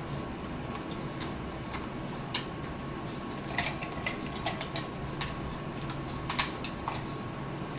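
Scattered light clicks and taps of plastic and metal rig parts as a plastic pistol grip is fitted and tightened onto a camera rig.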